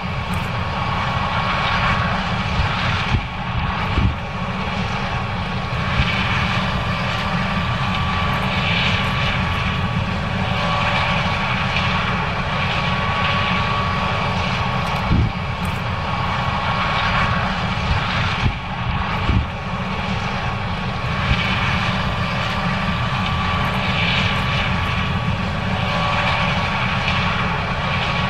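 John Deere 9610 combine running steadily while harvesting corn: a continuous engine and machinery drone with a faint steady whine, broken by a few brief thumps.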